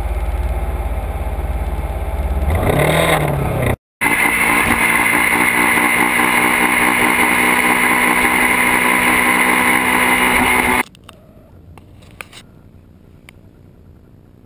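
Sport motorcycles in city traffic, with one engine revving up about three seconds in; after a sudden cut, a motorcycle engine running steadily at speed, heard loud through a camera mounted low on the bike. About eleven seconds in the engine sound cuts off, leaving a quiet background with a few faint clicks.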